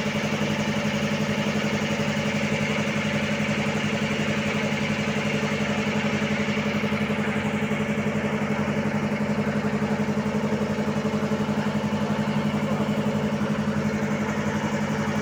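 Passenger boat's engine running steadily while under way: a constant low hum with an even, rapid throb that holds the same pitch throughout.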